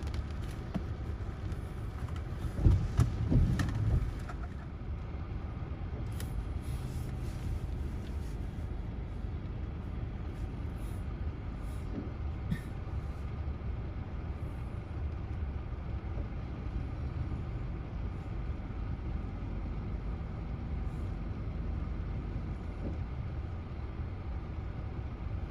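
Steady low rumble of wind and rain heard from inside a car, with a cluster of louder thumps about three seconds in.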